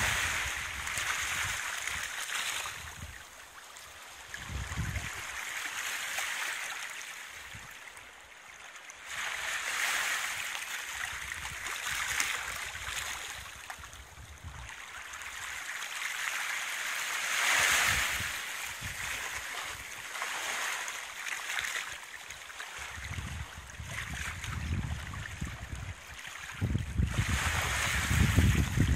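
Small waves lapping at the shoreline, a watery hiss that swells and fades every few seconds. Wind buffets the microphone with low rumbles in the last few seconds.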